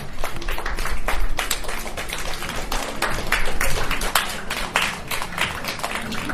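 A rapid, irregular run of sharp claps and taps, several a second, over a low rumble, starting suddenly.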